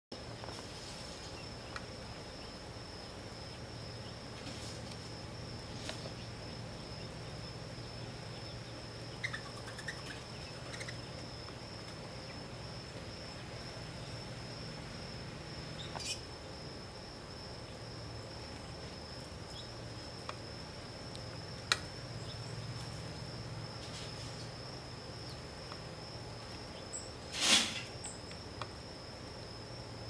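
Insects trilling steadily on one high pitch over a low steady hum, typical of a summer chorus of crickets or katydids. A few faint clicks and tiny chirps come through, and there is one brief louder burst near the end.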